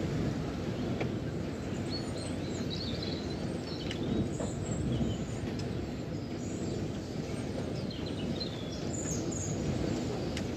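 Steady wind noise rumbling outdoors, with small birds chirping now and then, mostly in the middle and near the end.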